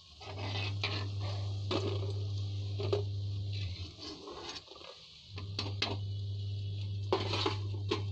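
Hot oil sizzling in a kadhai while a metal slotted spoon scrapes and clicks against the pan several times, lifting fried pakodis out of the oil.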